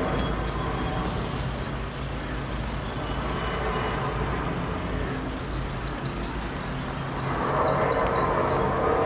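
Low, steady droning rumble of the kind reported as a mysterious 'strange sound from the sky', swelling louder again about two-thirds of the way through. Small birds chirp in a quick run of short high notes in the second half.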